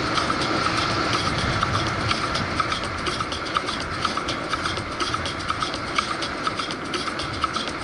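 Fat-tyre bike being ridden over rough ground: a steady rumble of tyres and wind, with irregular rattling clicks and knocks from the bike.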